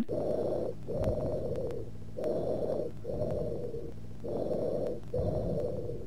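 Tubular bronchial breath sounds heard through a stethoscope: three breaths, each an inspiration, a short pause, then an expiration as long as or longer than the inspiration. This high-pitched bronchial breathing is heard classically in lobar pneumonia, where the lung is solidified but some bronchi stay open.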